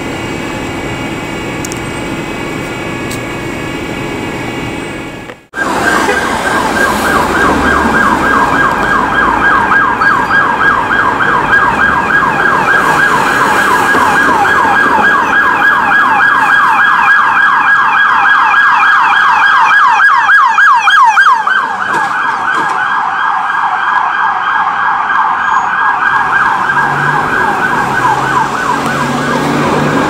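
A steady hum for the first five seconds, then, after a sudden break, a loud emergency-vehicle siren yelping rapidly up and down for the rest of the time, changing its pattern slightly about three quarters of the way through.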